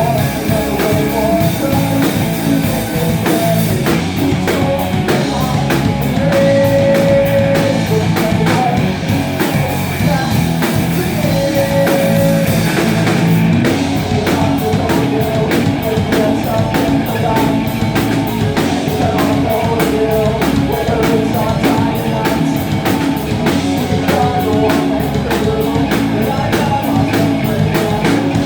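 Live rock band playing a loud song with electric guitar and a drum kit keeping a fast, steady beat; the drums hit harder and faster from about halfway through.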